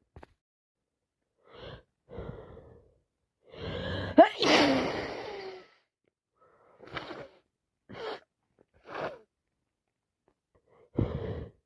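A person with a nose blocked by a cold and sinusitis sneezes once, loudly, about four seconds in, after a few short gasping in-breaths. Several short breaths follow.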